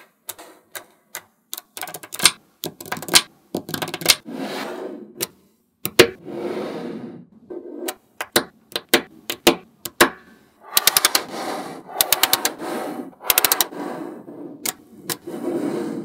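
Small magnetic balls clicking and snapping together as strips of balls are joined and pressed into place, with stretches of rattling as rows of balls shift against each other. Runs of quick clicks, several a second, come about two thirds of the way in.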